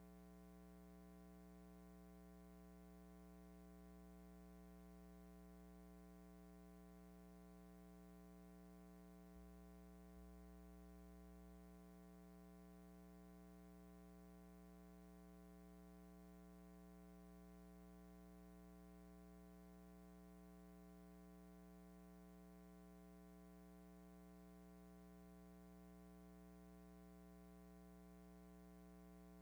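Near silence: only a faint, steady electrical hum with many even overtones. The film itself has no sound.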